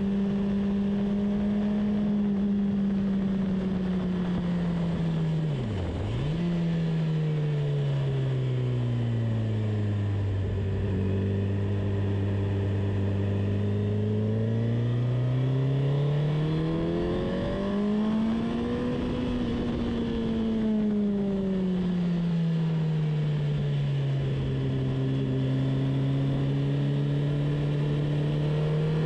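Car engine lapping a race track at speed. Its pitch holds, dips sharply and recovers about six seconds in, then falls slowly to a low steady note. It climbs again, falls back and starts rising once more near the end.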